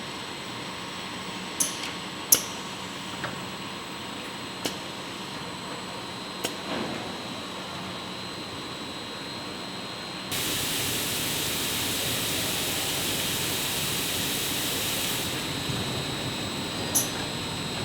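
CNC grinding machine running with a steady hum and a few sharp clicks. About ten seconds in a loud, steady hiss starts, eases a few seconds later and carries on more quietly.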